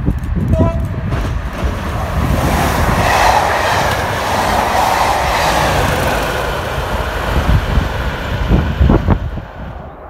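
Diesel locomotive hauling a rake of test coaches passing close at speed: steady engine and wheel noise, loudest a few seconds in, with wind buffeting the microphone. A brief high tone sounds about half a second in. The level drops sharply near the end.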